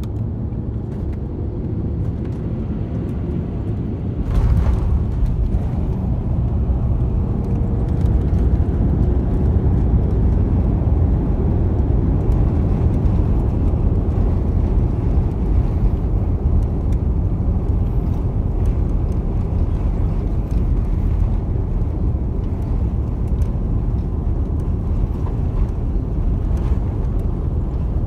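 Cabin noise of an Airbus A350-900 airliner landing: a steady rush on final approach, then a sudden thump about four seconds in as the wheels touch down. After it comes a louder, steady rumble of the landing roll on the runway.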